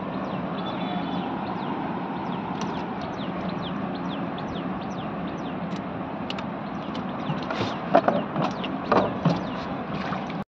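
Steady outdoor background hiss with small birds chirping in short, high, repeated calls. A handful of sharp knocks and rustles come about eight to nine seconds in, as a gill net and gear are handled in a small fibreglass boat.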